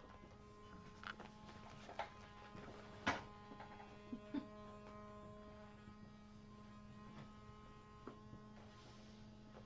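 Small battery-powered vibrating toy bug (a Nanobug) buzzing steadily on the floor, a low hum with a few higher tones starting as it is set down. A few short sharp clicks sound over it, the loudest about three seconds in.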